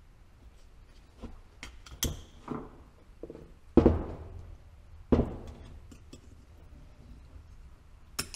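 Steel hydraulic cylinder part being worked by hand on a workbench as the old seals are pried out. A pick clicks against the metal now and then, and the part knocks twice on the bench with a short metallic ring, about four and five seconds in.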